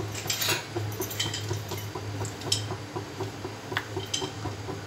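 Steel spatula clinking against the inside of an aluminium pressure cooker while stirring salt and chili powder in hot oil: a few sharp, scattered clicks over a steady low hum.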